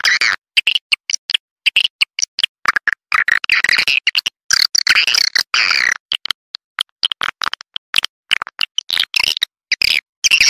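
Swiftlet calls: rapid twittering chirps and clicks in dense bursts that start and stop abruptly, with short gaps between them. This is the kind of swiftlet call recording played to attract swiftlets to a nesting house.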